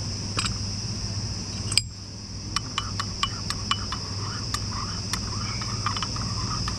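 Rainforest insects droning steadily at a high pitch, over a low steady hum. A run of light, sharp clicks about halfway through.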